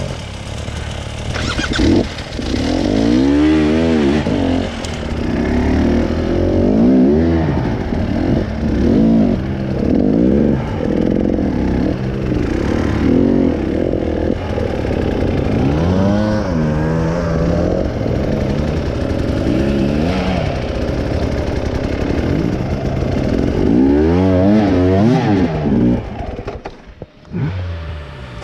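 Trail motorcycle engine revving up and down over and over, the pitch rising and falling every couple of seconds, briefly dropping away about a second before the end.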